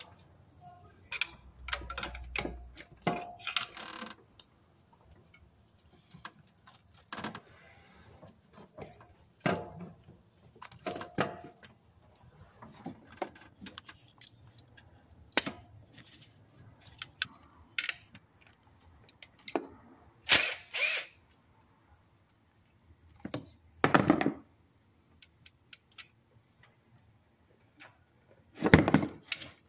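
Irregular clicks, knocks and clunks of hands and tools working on an alternator, including its plastic electrical connector being unplugged, with a few louder clunks in the second half.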